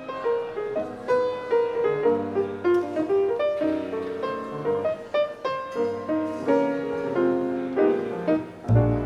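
Jazz piano playing a flowing melody over chords, in a relaxed lounge style. Deep bass notes come in strongly near the end.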